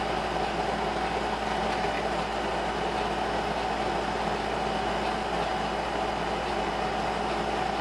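Steady hum and hiss of a running machine, with no distinct events.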